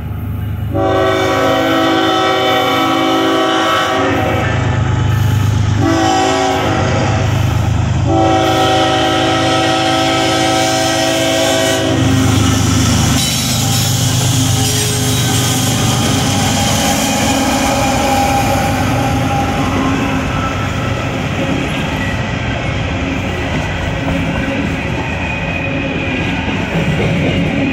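CSX 3127, a GE ES44AH diesel locomotive, sounds its horn for the grade crossing in three blasts, the middle one shorter. It then passes close by with its diesel engine running, followed by empty coal hopper cars rolling past with the clatter of steel wheels on the rails.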